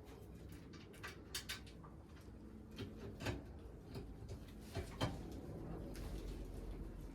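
Scattered light clicks and knocks, about seven spread over several seconds, from stove parts and fittings being handled during assembly.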